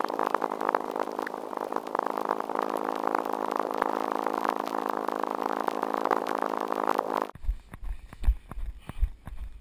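Sped-up field audio from a fast-forwarded run: a steady, engine-like buzzing drone that cuts off abruptly about seven seconds in, replaced by footsteps thumping at normal speed.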